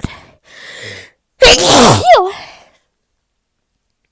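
One allergy sneeze: a breath drawn in, then a very loud sneeze about a second and a half in, its voiced pitch falling, ending in a short voiced tail.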